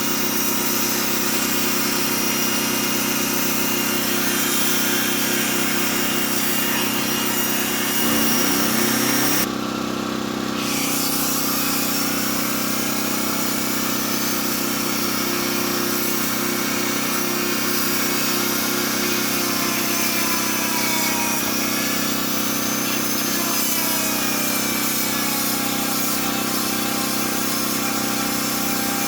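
A small generator engine running steadily under the whine of a Dremel rotary tool grinding chainsaw teeth with a sharpening stone. The tool's whine now and then dips and rises in pitch as it bears on the teeth.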